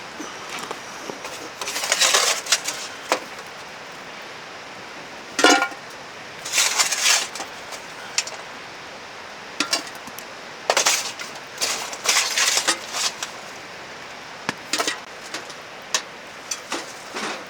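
Someone eating udon from a bowl: several short bursts of noodle slurping, with small clicks and clinks of utensils against the bowl in between.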